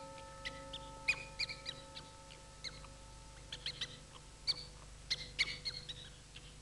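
Scattered short, high squeaks and chirps in small clusters, over the fading ring of a bell-like tone that dies away about four seconds in.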